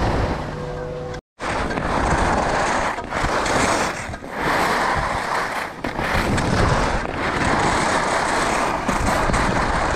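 Skis sliding and scraping over packed snow on a downhill run, with wind rushing over the microphone; the noise swells and eases from turn to turn.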